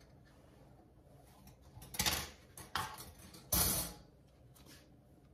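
Brief handling noises of kitchen items on a countertop: three short scrapes or clatters, about two, three and three and a half seconds in, the last the loudest.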